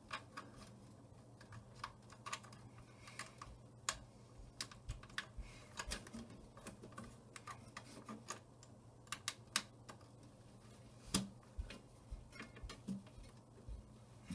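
Irregular small clicks and taps of an IDE ribbon cable and its plastic connectors being handled and pushed onto a hard drive inside a desktop PC case, over a faint steady low hum.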